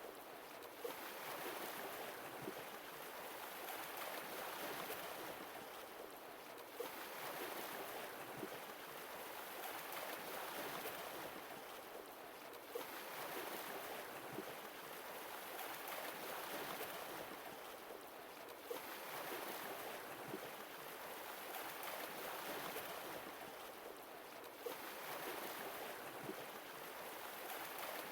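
Sea waves washing ashore in a slow, regular rhythm, each swell rising and falling away about every six seconds.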